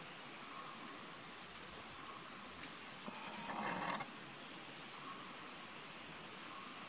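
Faint forest ambience: a steady high-pitched insect drone, with a noisy swell lasting about a second that cuts off abruptly about four seconds in.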